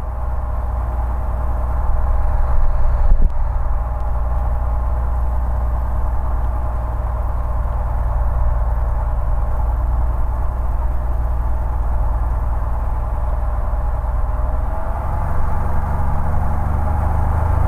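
Cessna L-19 Bird Dog's Continental O-470 six-cylinder engine and fixed-pitch propeller running at low power while taxiing, heard from the cockpit. The engine speeds up near the end, rising in pitch and getting louder.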